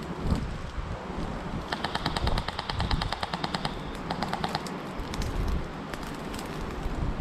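Airsoft electric rifle firing on full auto: a rapid burst of about two seconds at roughly a dozen shots a second, then a shorter burst, then a few scattered single shots.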